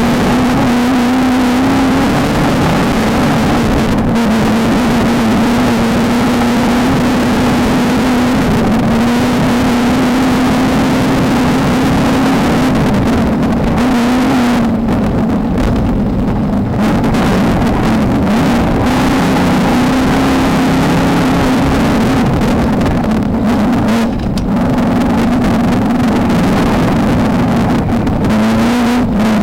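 Off-road desert race car engine running hard and continuously. Its pitch stays mostly steady, dipping and climbing a little now and then, over a loud, rough rush of noise.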